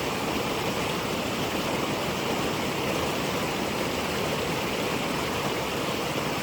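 Steady rush of water from a small waterfall, an even unbroken noise.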